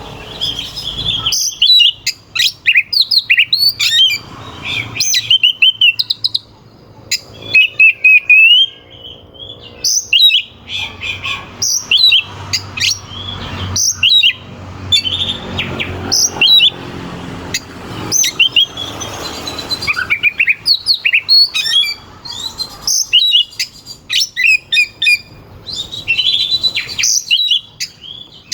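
Oriental magpie-robin singing hard: fast runs of loud, sharp whistled notes and chirps, phrase after phrase, with short gaps between them.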